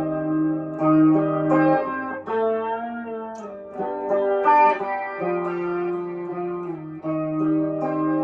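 Electric guitar through a pedal chain (overdrive, vibrato, tape echo) into a small amp, playing a slow picked chord riff that moves through G, F and E flat. Notes ring on and change about every second, with a slight wobble in pitch.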